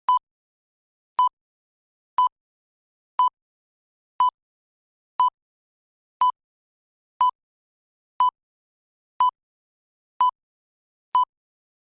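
Countdown timer sound effect: a short electronic beep once every second, twelve in all, with silence between them.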